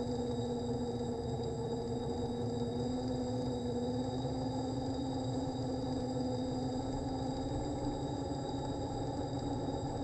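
Small electric motor of a cable-cam dolly running steadily as it travels along its wire. It makes a hum with a faint high whine above it, and the pitch rises slightly about three-quarters of the way in.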